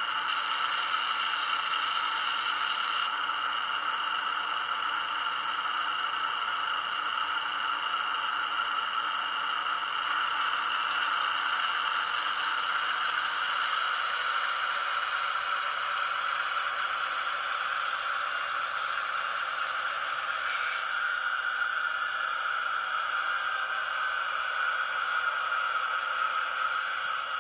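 Diesel engine sound played through a model locomotive's small loudspeaker: the Maybach engine sound file of an ESU LokSound 5 decoder running steadily, with a brief hiss at the start. About two-thirds of the way through there is a click, and the engine note then slowly rises in pitch.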